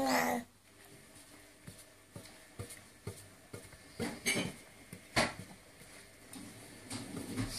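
A baby's short vocal sound at the very start, then scattered light knocks and taps on a wooden high-chair tray, with a sharper knock about five seconds in.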